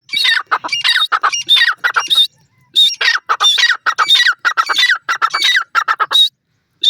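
Grey francolin calling: a rapid run of loud, harsh repeated notes that pauses briefly a little after two seconds, then carries on and stops shortly before the end.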